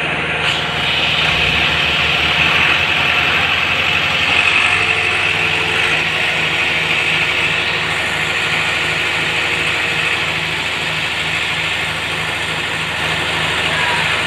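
Engine of a concrete mixer with pump running steadily, with a regular low pulse about twice a second in the second half.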